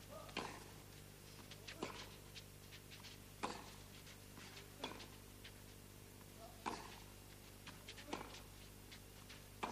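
Tennis ball hit back and forth in a baseline rally on a clay court: faint sharp racket strikes, seven in all, coming about every one and a half seconds.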